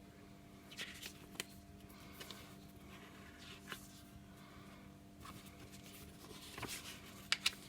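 Paper pages of a CD booklet being handled and turned: a few soft, scattered rustles and light ticks, with two sharper ticks near the end, over a faint steady hum.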